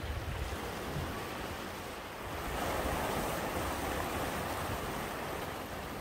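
Sea waves surging into a narrow rocky inlet: a steady rush of surf that swells louder about two and a half seconds in, then eases slightly.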